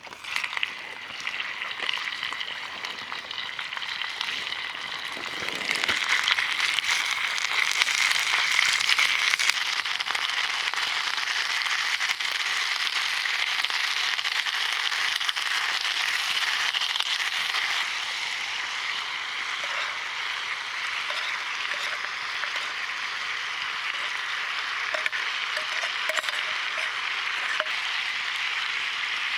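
Food sizzling in a hot pan, a steady frying hiss that grows louder about six seconds in.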